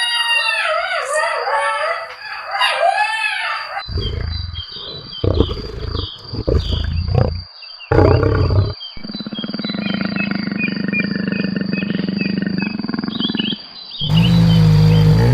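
Wild carnivore calls cut one after another: a run of high, arching yelping calls, then several deep roars, a long steady growl, and a loud low roar near the end.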